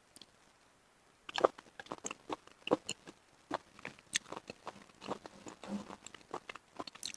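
Close-miked chewing of steamed mountain snail meat: wet, irregular mouth clicks and smacks of a chewy, crunchy bite, starting about a second in.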